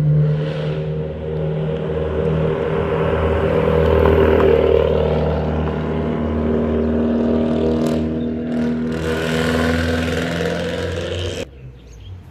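A car driving slowly past, its engine running at low, steady revs. The sound swells about four seconds in and drops away abruptly near the end.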